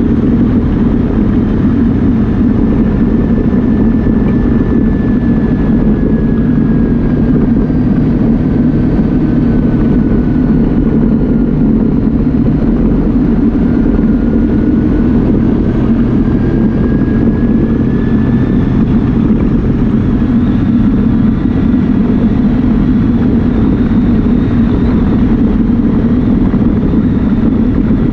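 Yamaha Viking side-by-side's single-cylinder engine running steadily as it drives along a rough trail. A faint whine slowly drops in pitch and then climbs back up through the middle.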